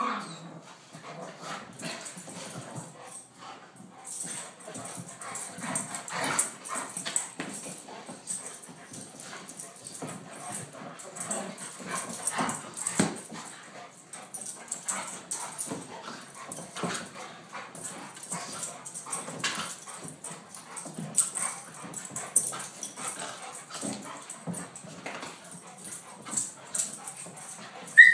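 Two dogs play-wrestling: a steady run of scuffling, small whines and yips, with a short, sharp, high yelp at the very end.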